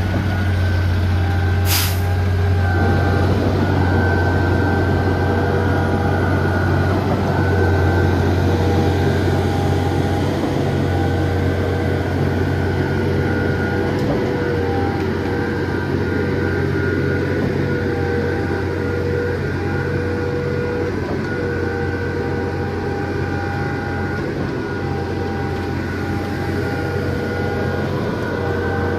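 Heavy truck engine running with a steady low hum. A sharp click comes about two seconds in, and about a second later a louder, busier noise with a steady whine comes in and holds.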